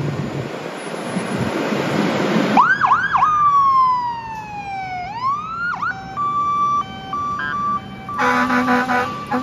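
Fire engine pulling out: engine noise builds for the first couple of seconds, then the electronic siren gives a few quick yelps and a long falling wail before switching to a hi-lo tone alternating between two pitches. Near the end, air horn blasts sound over the siren.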